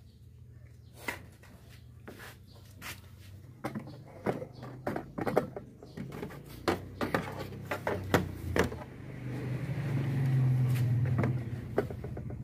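Plastic clicks and knocks as the front headlight cowl of a Honda Supra X 125 FI motorcycle is handled and unclipped. A low engine drone grows louder in the second half and becomes the loudest sound.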